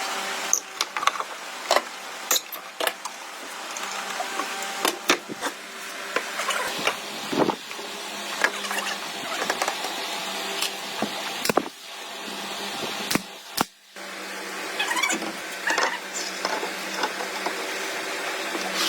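Steady hum of an electric motor in a woodworking shop, with many sharp knocks and clicks of wood and tools being handled.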